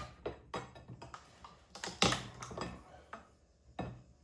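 Irregular clicks and knocks of hand tools and parts being handled while disassembling an electric-car onboard charger, the loudest knock about two seconds in.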